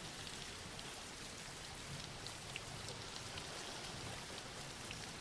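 Soft, steady rain: a faint even hiss with scattered light drop ticks.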